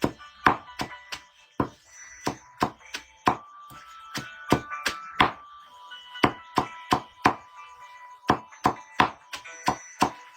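A blade chopping into wood with sharp blows, two to four a second in uneven runs, over background music.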